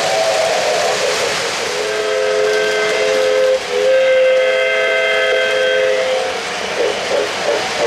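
Model locomotive sound-system steam whistle blowing two long blasts, the first starting about two seconds in and the second right after a short break, over the steady running noise of an O-gauge train rolling on the track.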